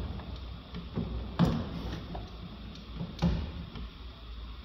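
Sharp knocks and lighter clicks from hands working on a car door with its trim panel removed: two loud knocks, about a second and a half in and again just past three seconds, over a steady low hum.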